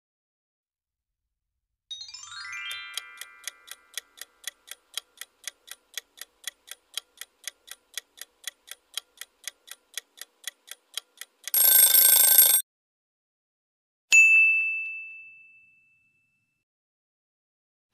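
Quiz-game countdown sound effects. A short rising chime is followed by a clock-like ticking, about three or four ticks a second, while the answer timer runs. A loud harsh burst about a second long marks time up. A single bell ding then fades away as the answer is shown.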